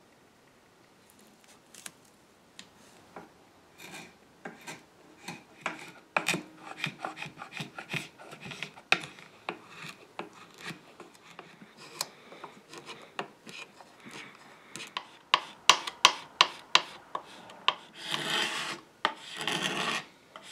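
Hand scrapers drawn across a wooden clock case, scraping an old water-damaged finish down to bare wood. Short separate rasping strokes come quicker and louder, turning into longer, denser strokes near the end.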